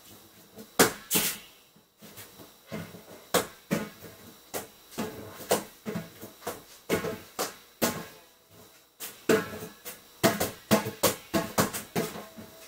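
An irregular series of sharp clicks and knocks, sometimes several in quick succession, with the busiest run near the end.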